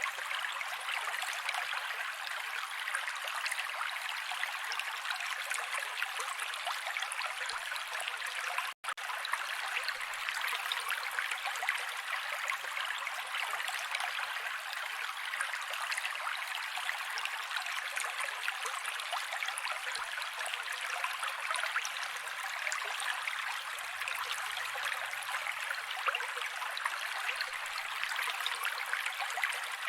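Mountain creek water running steadily over rocks, an even rush with fine splashing and babbling. The sound drops out for a split second about 9 seconds in, where the recording loops.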